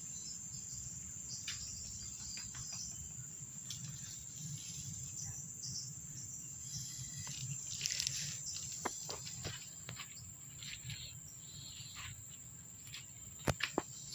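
Insects trilling steadily on one high note over a low hum, with scattered faint clicks and rustles, the loudest about eight seconds in.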